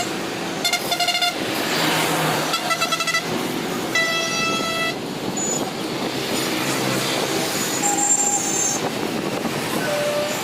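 Train horn sounding in four short blasts, the clearest and longest about four seconds in, over the steady noise of a running train.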